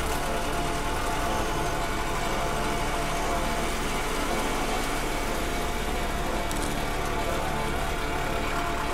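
A steady engine-like mechanical drone that holds an even level throughout.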